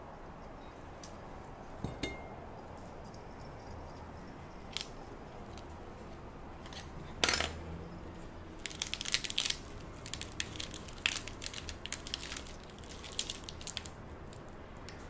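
Crisp lettuce leaves crinkling and crackling in the hands as they are folded into a wrap, in many short rustles through the second half. A single sharp click comes about seven seconds in, with a few lighter ticks earlier.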